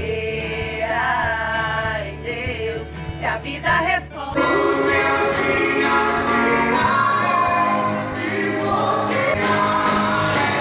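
Christian worship song: sung vocals over a band. About four seconds in, the music swells, fuller and louder.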